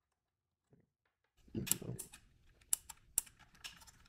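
Hands handling a plastic robot leg shell and its cabling: a run of light clicks, rattles and rustles with a few sharper clicks, starting about a second and a half in.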